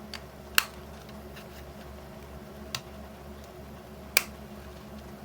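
Sharp plastic clicks as a dashcam's plastic case is pried open along its seam and its snap-fit tabs pop loose: a handful of isolated clicks, the loudest about half a second in and just after four seconds, over a steady low hum.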